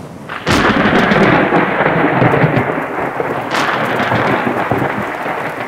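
Thunderstorm: a thunderclap breaks about half a second in and rumbles on over steady heavy rain, with a second sharp crack a little past the middle.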